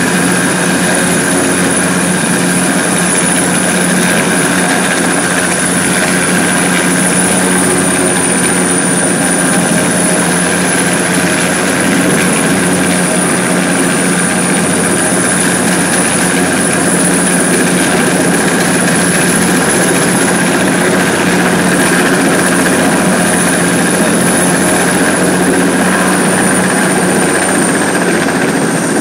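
Helicopter hovering at close range: a loud, steady rotor and turbine sound with a high whine, unchanging throughout.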